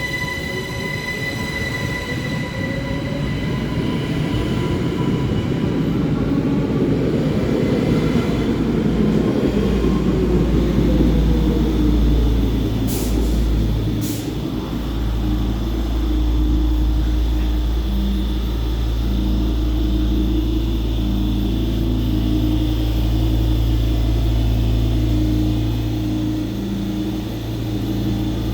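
Electric train: a motor whine rising in pitch over the first several seconds as it gets under way, then a steady low rumble of the train running, with two sharp clicks about halfway.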